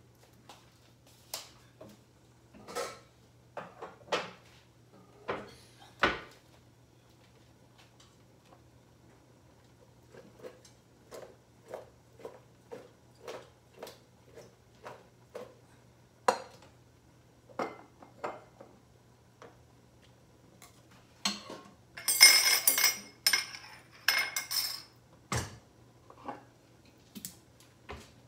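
Kitchen clatter of dishes and cutlery being handled: scattered clicks and knocks, then a louder run of clinking and rattling a little past two-thirds of the way through, over a faint steady low hum.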